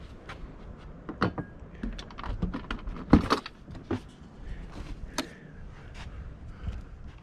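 Jayco Swift camper trailer's side door and its latch being worked by hand: a string of clicks and knocks, the loudest about three seconds in.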